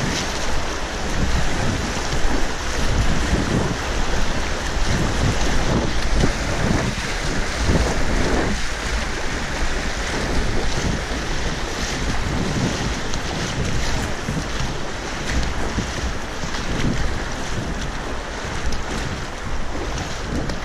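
River rapids rushing and splashing against the bow of an inflatable kayak, with wind buffeting the microphone in gusty low rumbles.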